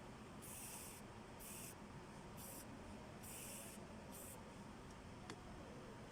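Five short, faint hissing strokes, then a single click.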